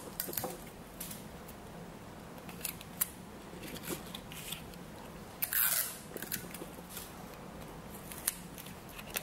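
Stiff paper card being folded and pressed into a triangular prism by hand: scattered light crinkles and clicks, with a brief rustle about five and a half seconds in.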